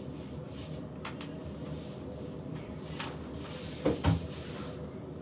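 Handling noise at a tabletop: a few faint clicks, then two knocks close together about four seconds in, over a steady low hum.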